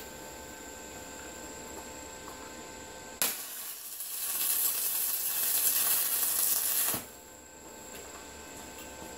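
Electric arc welding a plate onto a tractor grader blade's pin holder. About three seconds in the arc strikes suddenly and runs a bead as a loud, dense hiss for about four seconds, then stops.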